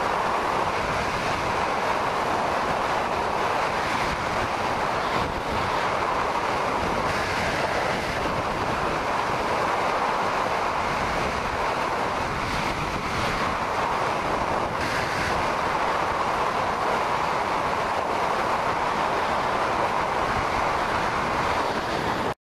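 Steady rush of wind and road noise from a motorcycle cruising at motorway speed, heard through a camera mounted on the bike. It cuts off suddenly near the end.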